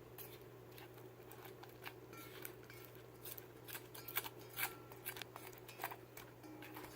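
Thickened shampoo-and-salt slime being squished and shaped by hand, making faint, irregular sticky clicks and crackles.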